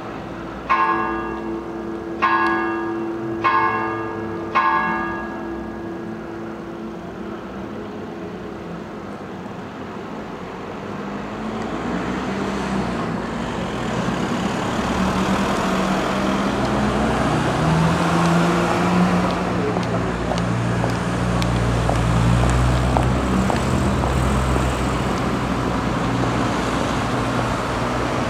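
A church tower bell strikes four times, about a second and a half apart, each stroke ringing on. From about halfway through, road traffic grows louder as vehicle engines pass close by.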